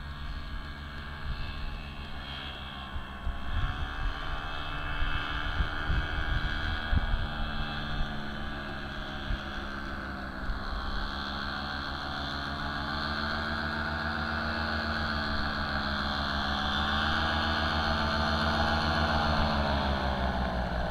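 Paramotor engine and propeller droning in flight, the pitch wavering and dipping with throttle changes, growing louder near the end as it comes close. There are a few low, buffeting thumps in the first half.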